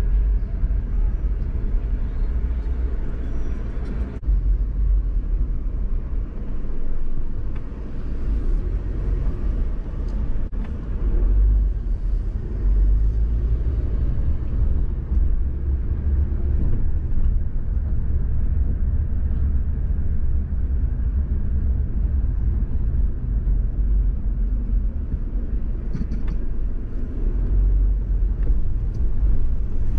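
A car driving, heard from inside its cabin: a steady low rumble of engine and tyre noise.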